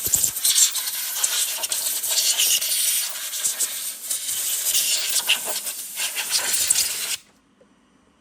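A loud, steady hiss with a rough, fluttering texture, cutting off suddenly about seven seconds in.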